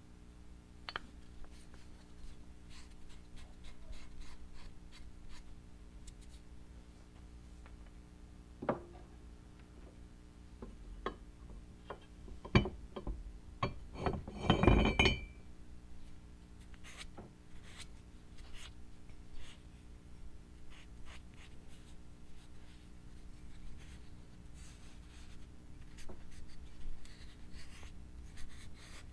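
Metal parts of a vintage meat grinder being handled and taken apart by hand: scattered light clicks and scrapes, with a quick run of sharp clinks and knocks about twelve to fifteen seconds in, one of them ringing briefly.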